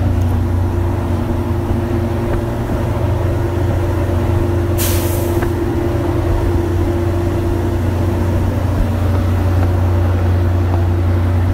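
Diesel train engine idling with a loud, steady low hum and constant drone. A short hiss of air, like a brake venting, comes about five seconds in.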